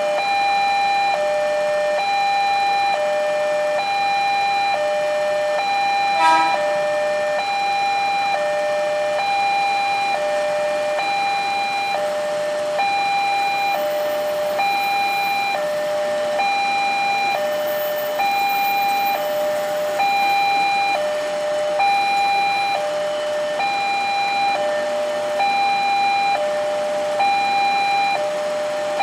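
LEN railway level-crossing warning alarm sounding while the crossing gate is closed for a train. It is an electronic two-tone ding-dong, a higher and a lower tone alternating about once a second, repeating steadily. A short louder sound breaks in about six seconds in.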